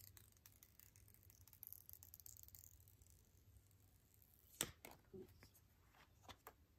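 Near silence with scattered faint clicks and light rustling, and one sharper click about four and a half seconds in, followed by a few more small clicks.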